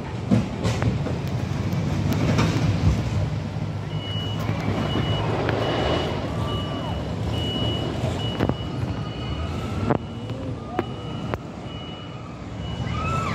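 Construction machinery running with a low engine rumble; about four seconds in, a vehicle's reversing alarm starts beeping at an even, repeating pace.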